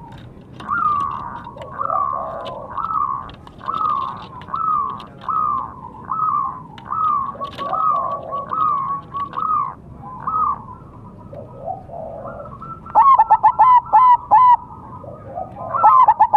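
Zebra dove (perkutut) cooing: a long, regular series of short, down-curving coo notes, about one every two-thirds of a second. Past the middle a quicker, louder run of sharp, clipped notes follows, with a few more near the end.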